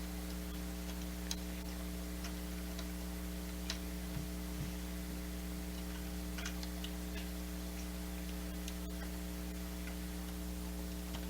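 Steady electrical mains hum, with a few faint, scattered clicks of plastic building bricks and a minifigure being handled and snapped into place.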